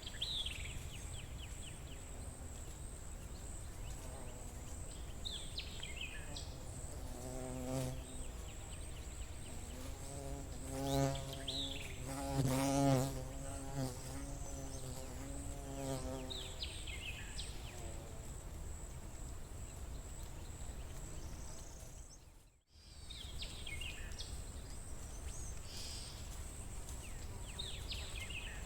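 A flying insect buzzes close past the microphone for several seconds in the middle, its hum rising and falling as it moves about. Over a steady high insect trill, a bird repeats a short descending call every five seconds or so. The sound cuts out for a moment about two-thirds of the way through.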